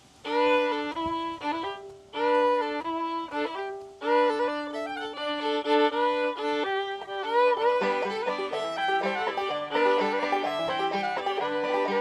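Bluegrass fiddle break: two short bowed phrases with brief pauses, then a continuous running melody. Lower accompanying notes join under it about halfway through.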